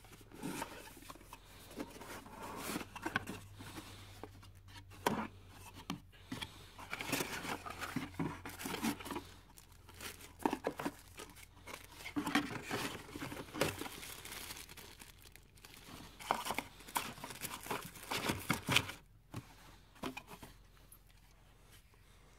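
Cardboard box and plastic bag being handled while unpacking: box flaps scraping and knocking, plastic crinkling and tearing as the device is pulled out, in an irregular run of rustles and knocks that quietens near the end.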